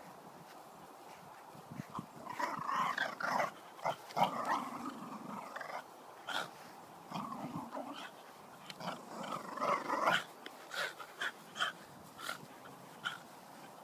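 A dog growling and grumbling in several irregular bouts, followed near the end by a string of short, sharp sounds.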